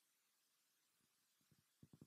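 Near silence: room tone, with a few faint, short low knocks near the end.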